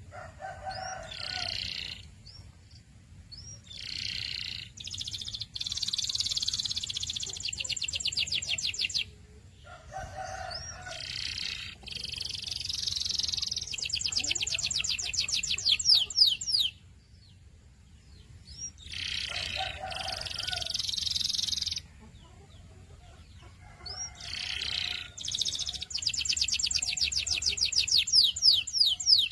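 Domestic canary singing: high phrases and fast trilled rolls of rapidly repeated notes, broken by short pauses. The same song sequence comes round about every nine seconds.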